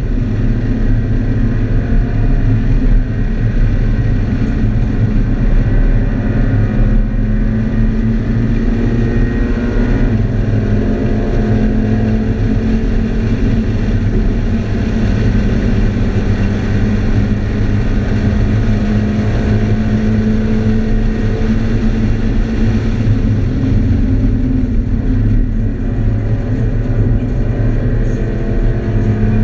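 Scion FR-S's 2.0-litre flat-four engine pulling hard at track speed, heard from inside the cabin over steady road and tyre noise. Its pitch climbs under acceleration several times, with a fitted drop-in intake filter and a stage 1 tune.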